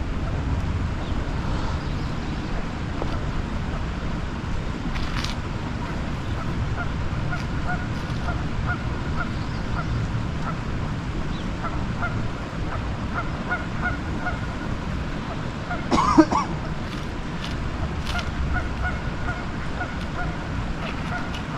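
Steady low outdoor rumble of wind and distant traffic, with a single loud honking bird call about sixteen seconds in.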